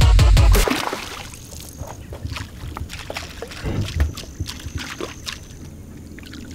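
Heavy-bass electronic music cuts off under a second in. Then a hooked black bass splashes and thrashes at the water's surface in a run of short, sharp splashes as it is played in and lifted out.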